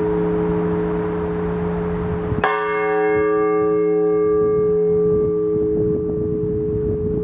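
Orthodox church bells ringing: a deep bell hums steadily, and about two and a half seconds in a bell is struck and rings out with many overtones that slowly fade. Strong wind gusts rumble on the microphone underneath.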